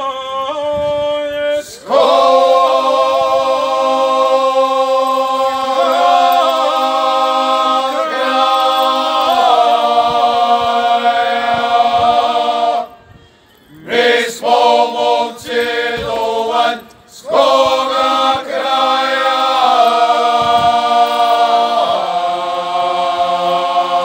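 Group of men singing a bećarac, a Croatian folk song in traditional style. A thinner voice part opens, the full group comes in about two seconds in with long held chords, and the singing breaks off briefly twice near the middle before the group sings on.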